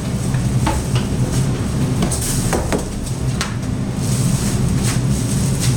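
A cardboard appliance box being handled and pulled at, giving a few short scrapes and knocks, over a steady low mechanical hum.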